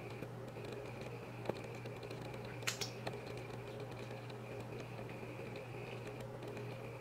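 A steady low hum with a few faint, scattered clicks and taps; the sharpest click comes about three seconds in.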